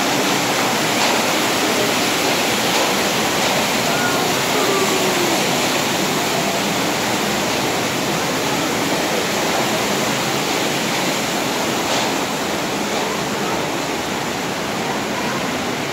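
Steady rushing of a white-water torrent through a narrow rock gorge.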